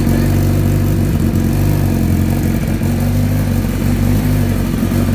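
Motorcycle engine idling steadily through a newly fitted aftermarket exhaust that is held on by a spring and does not seal fully, so a little exhaust leaks at the joint.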